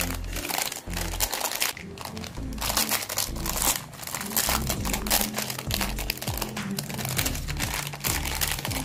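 Clear plastic film wrap crinkling and crackling as hands peel it off a plastic paint palette, over background music with a low bass line.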